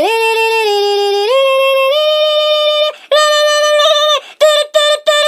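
A high-pitched voice singing held notes that step upward in pitch, then a long held note, then a quick run of short clipped notes near the end.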